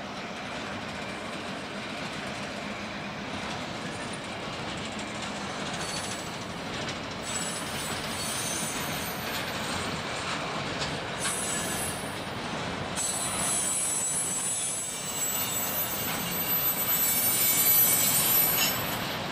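Freight cars rolling past on the rails with a steady rumble of steel wheels on track. From about six seconds in, high-pitched wheel squeal comes and goes, loudest near the end.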